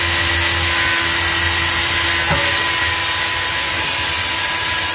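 Electric arc welding on a steel frame: the arc gives a steady, loud hiss with a low hum underneath.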